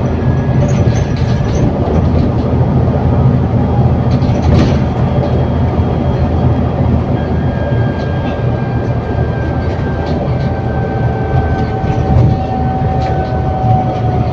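ADL Enviro400 City double-decker bus with a Voith automatic gearbox heard from on board while under way: a steady low engine drone with interior rattles. In the second half a thin whine comes in over the drone and sinks slightly in pitch near the end.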